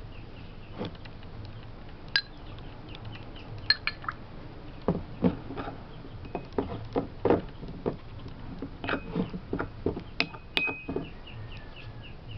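Metal spoon clinking and tapping against a small ceramic bowl while stirring powder and water into a milky slurry, with a few ringing clinks early and a quick run of taps through the middle.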